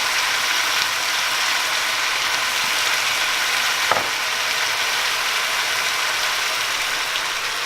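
Vegetables sizzling steadily in a hot frying pan during a stir-fry, with a single click about four seconds in.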